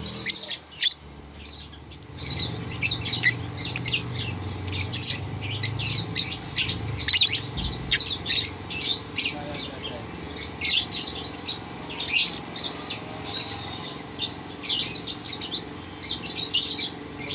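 Lovebirds chattering: a dense stream of short, sharp, high-pitched chirps and squawks, several calls a second, in uneven runs.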